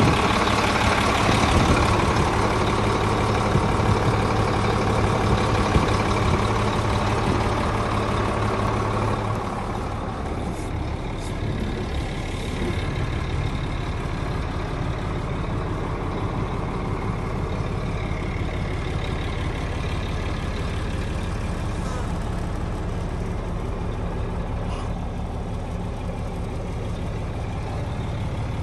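Heavy truck's diesel engine idling steadily, a little quieter after about ten seconds.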